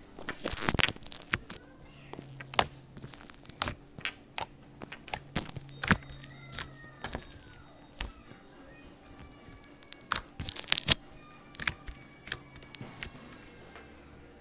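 Foam-bead slime being squeezed and kneaded by hand: irregular crackling and popping of the foam beads, with squelches in between.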